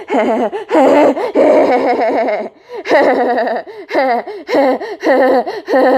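A person laughing in quick, high-pitched bursts, with a short break about two and a half seconds in.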